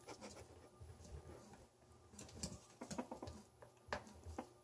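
Silkie chickens pecking at cooked chicken bones on a tile floor: faint, scattered taps of beaks striking bone and tile.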